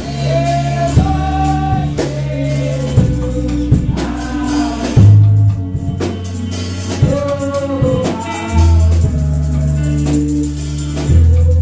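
Gospel music: singing over a bass line and drums with tambourine, in a steady beat.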